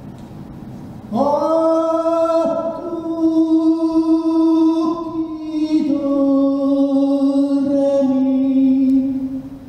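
Unaccompanied vocal music: a sung voice enters about a second in with an upward slide, then holds long, sustained notes that step down in pitch, fading out near the end.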